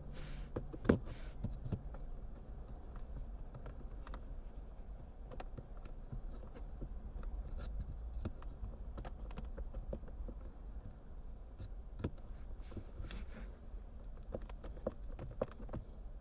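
End-cutting pliers nibbling at a thick plastic console lip: scattered clicks and snaps of the plastic, the sharpest about a second in.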